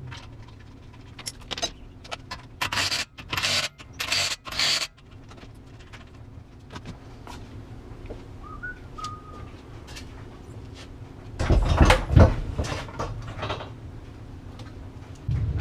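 Wheel lug nuts being run down with a wrench: four quick rattling bursts of tool noise about three seconds in, then a louder clatter around twelve seconds in.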